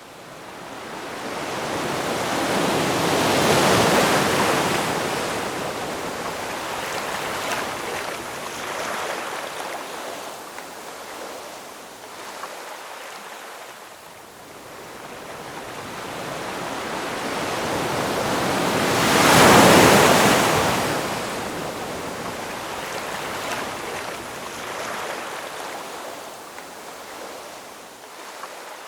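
Ocean waves breaking and washing back: two waves swell up and break, one about four seconds in and a louder one around twenty seconds in, each fading slowly into the hiss of surf.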